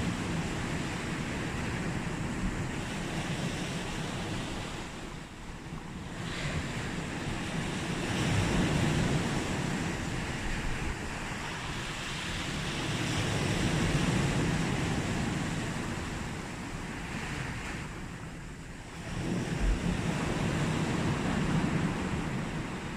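Sea waves breaking and washing on a small beach, the surf swelling and easing every few seconds, with some wind on the microphone.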